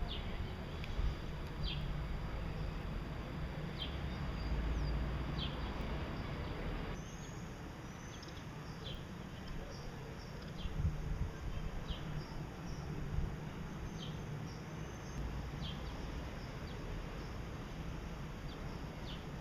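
Gouldian finches giving short, high chirps, scattered every second or two, over a steady low background rumble.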